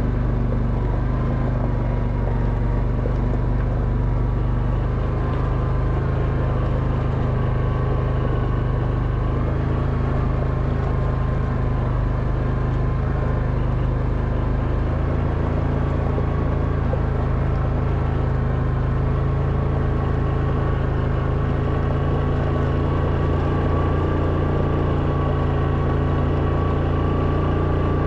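Quad bike engine running steadily at low revs under load as it climbs a steep, loose scree track, with a thin steady whine above the engine note.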